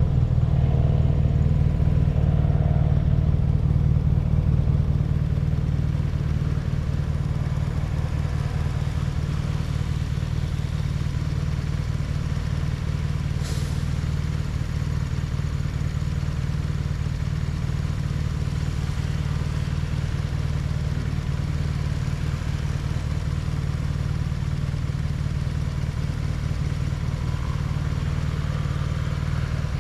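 BMW R nineT's boxer-twin engine running steadily, easing off slightly about five seconds in. A short hiss comes about halfway through.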